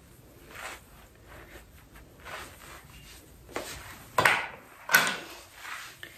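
A few soft rustles, then two sharp knocks about a second apart near the end, from makeup things being handled and set down.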